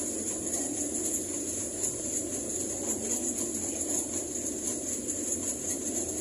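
Steady running noise of a bus on the move, heard from inside the cabin, with a constant high whine over it.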